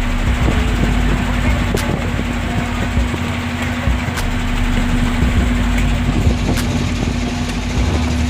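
Small fishing boat's engine running steadily, a constant low hum over rumble and noise, with a few faint clicks.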